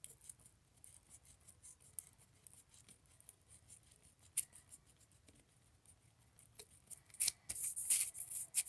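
Pencil eraser rubbing on paper in faint, scattered short scratchy strokes, then a run of louder quick rubbing swishes near the end as a hand brushes across the paper.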